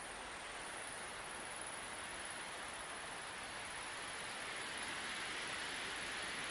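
Wind blowing steadily across open country, a soft even rushing that slowly swells a little louder.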